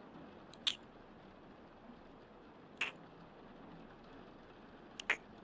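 Soft wet smacks, three of them about two seconds apart, the last a quick double, over a faint steady hiss.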